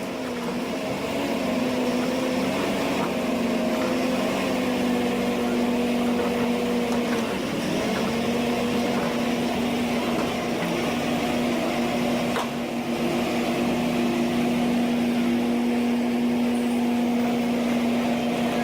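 Forestry harvester's diesel engine running steadily with a droning hum. Its pitch dips briefly about seven seconds in, then recovers.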